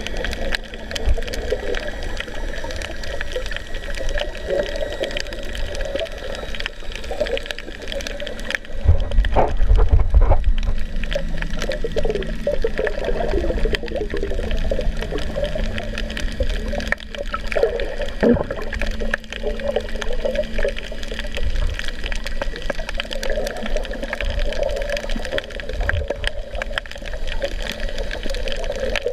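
Muffled underwater water noise picked up through a camera's waterproof housing, with a louder low rumble of water about nine seconds in.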